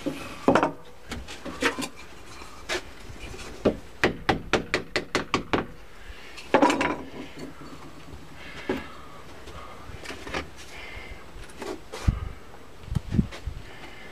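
Knocks and clatter of wooden railing parts and hand tools being handled, with a quick even run of about eight sharp clicks around four seconds in and a few low thumps near the end.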